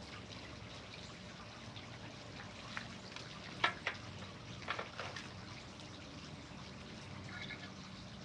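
A few light clicks and taps of succulent cuttings being worked into a planter, the sharpest about three and a half seconds in, over a steady low background hiss.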